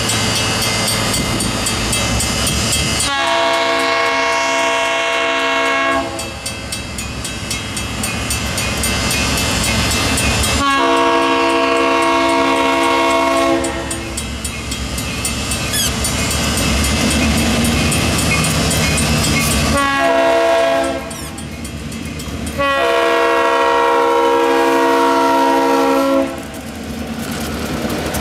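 GP38 diesel locomotive's horn sounding the grade-crossing signal: two long blasts, a short one and a long one. A diesel engine rumbles throughout and grows louder near the end as the locomotives reach the crossing.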